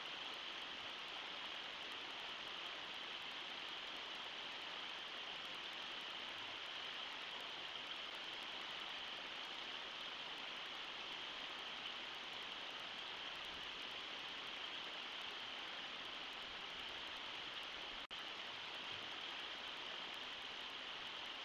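Steady rush of river water running through shallow rapids, with a brief cut-out near the end.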